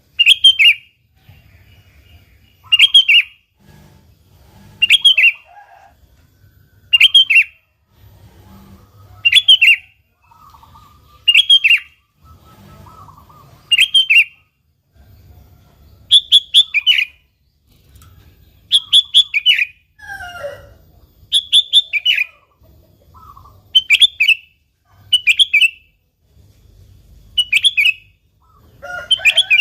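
Sooty-headed bulbul (kutilang) singing: a short, loud phrase of a few quick notes, repeated about every two seconds.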